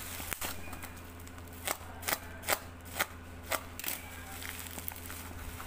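A black plastic mailer bag being crinkled and ripped open by hand: a run of sharp crackles and tears, about two a second through the middle, over a low steady hum.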